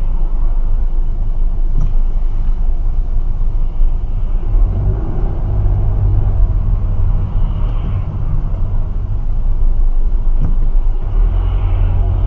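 Steady low rumble of a car's engine and road noise inside the cabin, picked up by a dashcam as the car rolls slowly through traffic.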